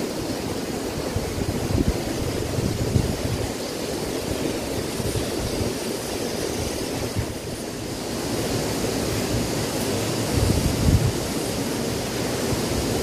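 Steady rush of water from a small cascade pouring into a river pool, with wind buffeting the microphone in low rumbles about two to three seconds in and again about ten seconds in.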